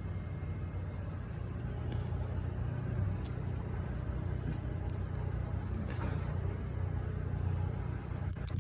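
Steady low mechanical rumble, like engine noise, holding at an even level throughout with no distinct events.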